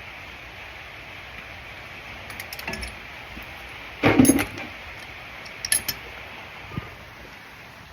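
Metal tools or parts clinking and clattering against each other: a few light clinks, one louder clatter about four seconds in, then a couple of sharp clinks, over a steady background hiss.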